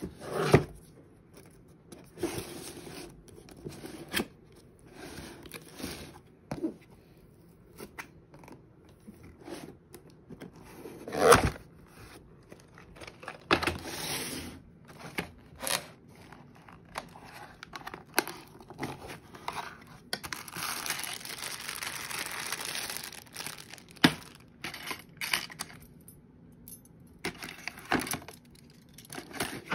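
Cardboard packaging of a CPU cooler being handled and opened: scattered knocks, scrapes and rustles, with a sharp loud knock about eleven seconds in and a steady scraping stretch of about three seconds around twenty seconds in. Near the end, the cooler's black metal mounting brackets are handled in their cardboard tray.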